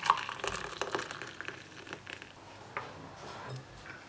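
Hot water poured from a glass kettle into a ceramic mug over a metal mesh tea infuser, a splashing hiss that tails off after about two seconds, followed by a few light clicks.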